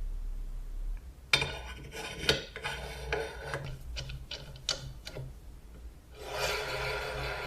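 Irregular scraping strokes and sharp clicks on metal, then a steady rasping rub from about six seconds in, as when a rusted metal part is worked over.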